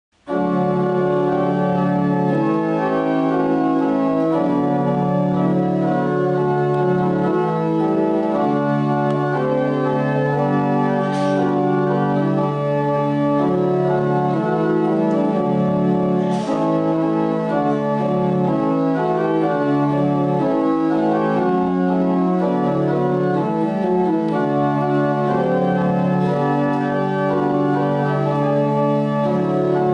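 Church organ playing a prelude in slow, sustained chords that start just after the beginning. Two brief clicks sound about 11 and 16 seconds in.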